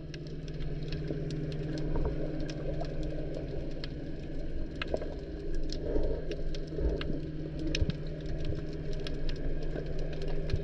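Underwater ambience picked up by a camera in its housing: a steady low hum, with many scattered sharp clicks and crackles throughout.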